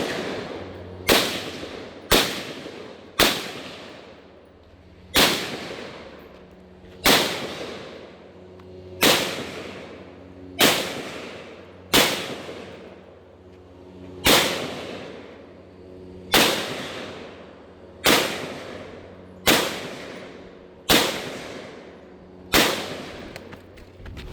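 Gunshots fired one at a time at a steady pace, about sixteen shots, one every one to two seconds. Each shot is sharp, with an echoing tail.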